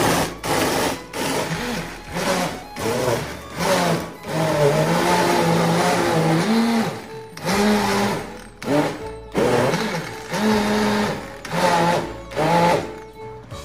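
High-speed countertop blender pulsed on and off repeatedly, crushing ice in orange juice, with one longer run of about three seconds in the middle. The motor pitch rises and falls with each pulse.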